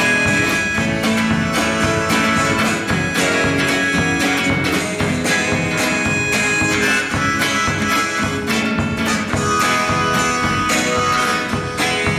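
Live band playing an instrumental break: acoustic guitar strumming, electric bass and a drum kit keeping a steady beat, with held notes of a lead melody over them.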